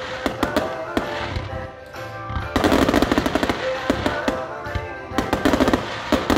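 Aerial fireworks bursting overhead in rapid rattling volleys of sharp reports, denser and louder from about two and a half seconds in, with show music playing underneath.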